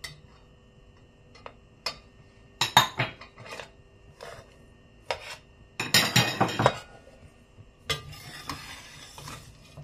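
Metal spoon clinking and scraping against a stainless steel pot while stirring a dry mix of ground nuts, sesame seeds and powder. There are scattered clinks, a louder scraping stir about six seconds in, and a longer rustling stir near the end.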